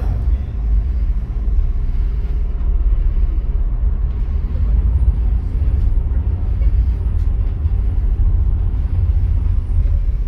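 Steady low engine rumble of a First Fleet class ferry's diesel engines, heard inside its passenger cabin.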